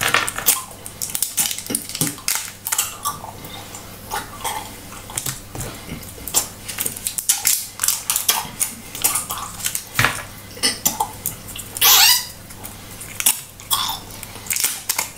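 Paper wrappers of Hubba Bubba gum cubes crinkling and crackling as they are picked open by hand, a dense run of small crackles, with a louder rustle about twelve seconds in.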